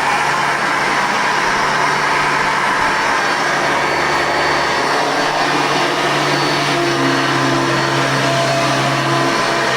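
Hoover Elite II upright vacuum cleaner's 6.5-amp motor running steadily, a loud, even whir. The motor has a new fan and freshly lubricated bearings.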